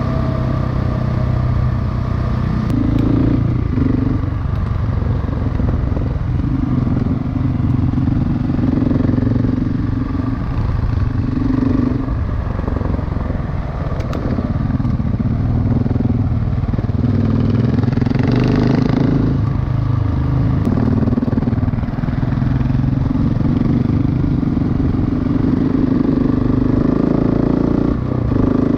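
Single-cylinder dual-sport motorcycle engine running while riding, its note rising and falling every second or few as the throttle opens and closes, with rumble and rattle from the trail.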